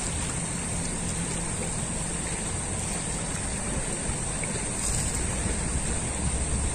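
Steady rushing of a fast-flowing, flood-swollen river, with a faint low hum beneath it.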